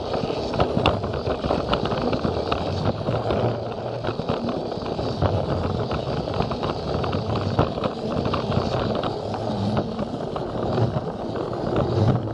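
Plarail battery-powered toy train running on plastic track: a steady motor hum and rattle of plastic wheels, with irregular clicks.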